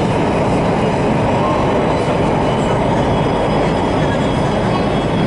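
Metro train running, heard from inside the passenger car: a steady rumble of wheels on rail and running gear.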